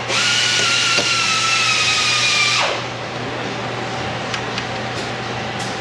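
Handheld power tool motor whirring with a steady whine that sags slightly in pitch, then winding down and stopping about two and a half seconds in, leaving a low steady shop hum with a few light clicks.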